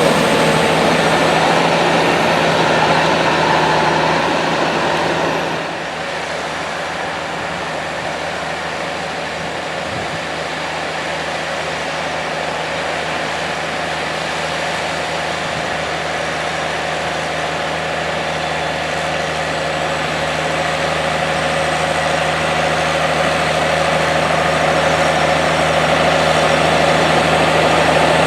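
Heavy diesel farm machine engine running steadily. The sound drops somewhat about five seconds in, then slowly grows louder again.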